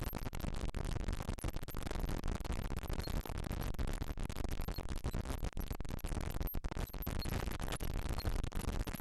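Steady crackling static noise with many brief dropouts and no tune or voice.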